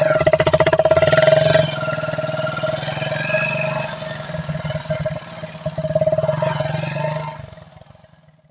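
Motorcycle engine running with a tin box fitted over the silencer outlet, giving a loud, fast-pulsing exhaust note with a steady ringing tone. It drops somewhat in loudness after about a second and a half and fades out near the end.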